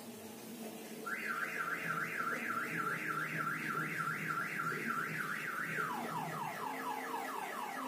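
An electronic alarm or siren wails in repeating sweeps. About a second in it starts with rising sweeps, about four a second. Near the end it switches to a faster pattern of falling sweeps, as a multi-tone alarm does when it cycles between its tones.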